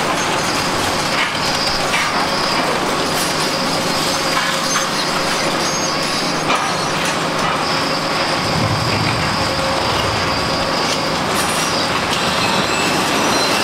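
Kobelco SK850 demolition excavators working: steady diesel engine and hydraulic noise, with crunching and cracking as their long-reach attachments break up reinforced concrete decks. A steady high-pitched whine runs over it, dropping out for a few seconds in the middle.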